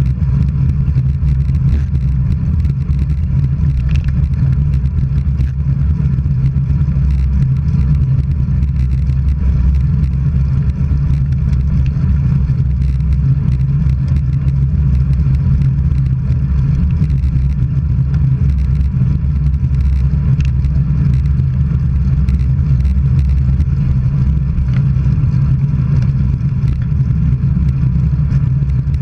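Steady low rumble of wind buffeting the microphone and road noise while travelling along a road, even in level with no distinct events.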